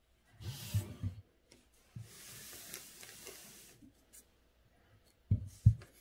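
Calligraphy paper being handled and slid along the desk: a short rustle with soft knocks, then a steady rubbing hiss for about two seconds. Two dull thumps near the end.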